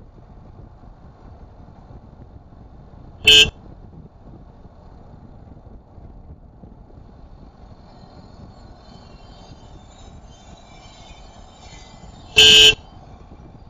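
Two short car horn toots, the first about three seconds in and a slightly longer one about nine seconds later, over a steady low rumble of road noise from a moving car.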